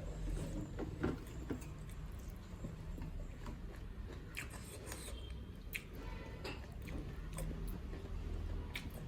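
Close-miked chewing and mouth sounds of someone eating millet dhido and chicken curry, with scattered small smacks and clicks over a low hum.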